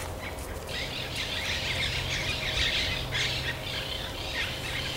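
Birds chirping in a busy, high-pitched chorus that comes and goes in bursts, over a low steady hum.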